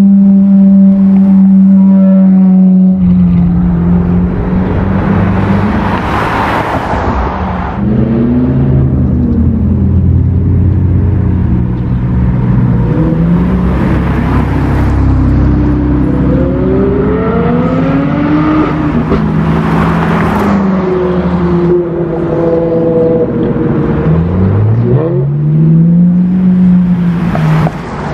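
A string of sports cars driving past one after another, their engines rising and falling in pitch as they rev and go by. First a Ferrari 458 Italia's V8 holds a steady note for about three seconds, and a first-generation Honda NSX's V6 passes around the middle.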